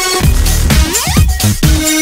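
Loud electronic dance music with heavy bass, with a rising synth sweep about a second in.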